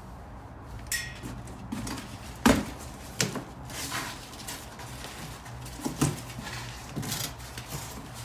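Unboxing: a dip attachment and its packaging being handled, giving a string of knocks and clatters with rustling between them. The loudest knock comes about two and a half seconds in.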